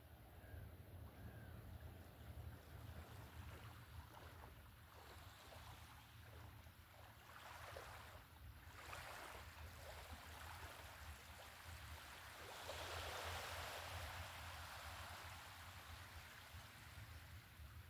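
Faint small waves lapping at the water's edge, with a louder wash of water about thirteen seconds in, over a low steady rumble.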